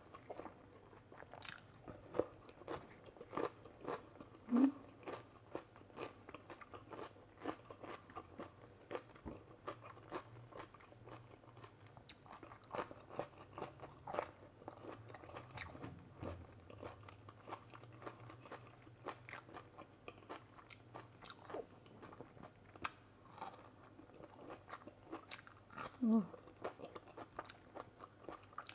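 Close-miked eating of barbecue-style pork, okra and rice: steady irregular chewing and biting with many small wet crunches and mouth clicks, a little louder about four seconds in and again near the end.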